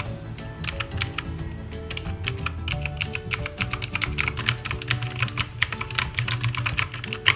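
Typing on an OKER K79 mechanical keyboard with blue switches: rapid, loud clicky keystrokes that grow denser after about two seconds, over background music.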